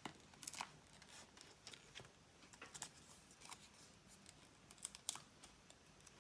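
Faint, scattered small clicks and paper rustles from hands handling a small cardstock circle and sticking foam adhesive dimensionals onto its back.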